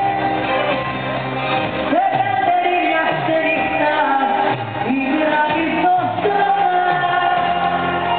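Live Greek popular song: a woman singing with a band that includes a bouzouki, heard in a large hall.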